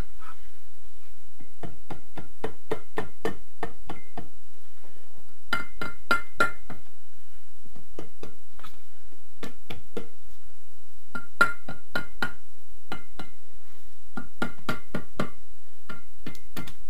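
Rubber mallet tapping a Honda VFR800Fi cylinder head in quick bursts of several blows, each strike ringing briefly. The tapping is meant to break the head loose from the engine block.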